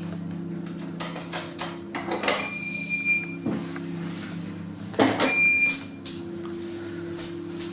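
Kone passenger lift: a steady low hum from the travelling car, broken by two loud electronic beeps about two and a half seconds apart, each lasting under a second at one steady high pitch, typical of a lift's floor or arrival signal.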